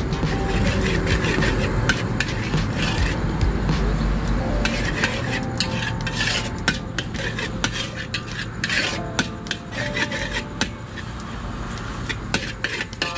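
Metal spatula scraping and clattering rapidly against an aluminium wok while egg and beef are stir-fried, over a steady low rumble.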